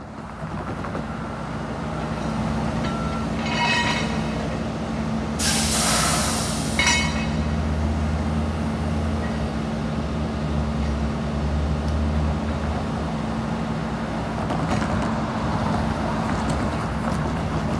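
Heavy diesel boom truck's engine running steadily, with a loud hiss of released air for about a second and a half, starting just after five seconds in.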